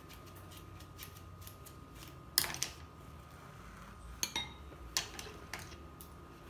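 Small scissors snipping into a rubber glove, mixed with a spoon clinking in a glass bowl: a scattering of sharp clicks and clinks, the loudest about two and a half seconds in.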